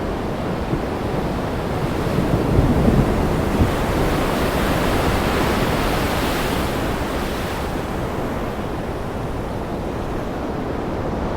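Heavy rain and gusting wind, a steady rushing noise with a deep rumble underneath that swells brighter about halfway through.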